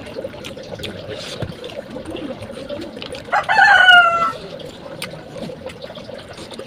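A rooster crows once, a little after halfway through. The crow lasts about a second and drops in pitch at the end. Around it are the small clicks and smacks of someone eating rice by hand and chewing.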